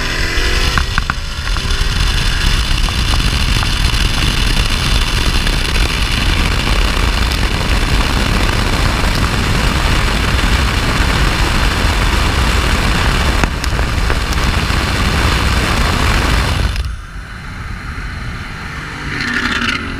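Car at full throttle heard from inside the cabin during a hard acceleration run: loud engine, wind and road noise that keeps up for about sixteen seconds, then drops off sharply near the end as the car backs off.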